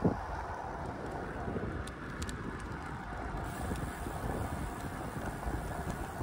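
Low, steady outdoor background noise: an even rumble and hiss with no distinct events.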